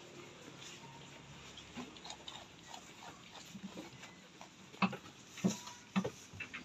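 Jawarandu goats eating fresh-cut grass from a trough: irregular chewing, snuffling and rustling of the grass, with three louder sharp knocks about five to six seconds in.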